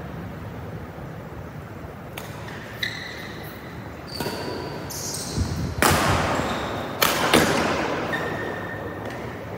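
Badminton rackets hitting a shuttlecock in a rally, a string of sharp strikes with the loudest around six and seven seconds in, echoing in the hall. Short high squeaks of shoes on the court mat come between the hits.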